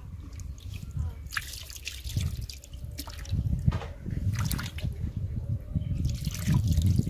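Fish pieces being rubbed and rinsed by hand in a bowl of flour water, with water splashing and dripping. The splashing grows louder from about three seconds in, when water is poured from a plastic jug over the fish.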